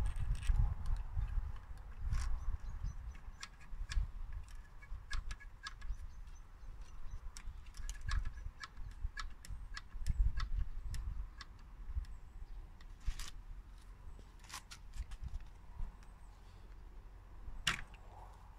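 Scattered clicks and taps of a tennis racket being strung by hand: a portable tension gun and string clamps worked on the strings, with one louder click near the end. Under it runs a low, uneven rumble of wind on the microphone.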